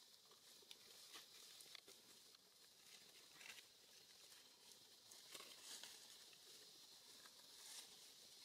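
Near silence: a faint hiss with scattered soft clicks and rustles.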